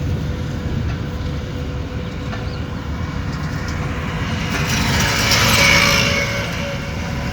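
A car running on the road: a steady low engine and road rumble, swelling louder with a brighter hiss about five to six seconds in.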